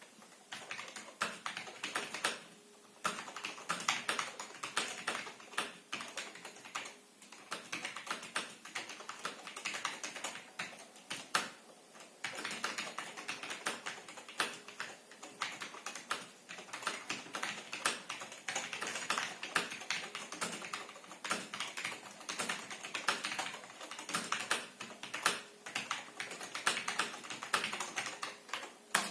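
Typing on a Cherry G81-3000 keyboard with Cherry MY linear switches freshly lubricated with PTFE lube: a quick, uneven run of keystroke clicks with a few short pauses.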